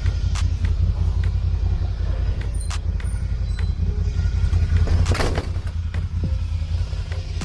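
TGB Blade 1000 ATV's engine running at steady revs while riding, a low rumble with a few scattered clicks and a brief rush of noise about five seconds in.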